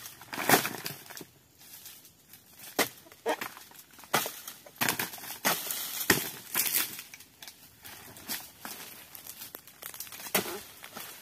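Long-pole sickle hacking and tearing at oil palm fronds: irregular sharp cracks and crunches, with the fronds crackling and rustling as they are pulled.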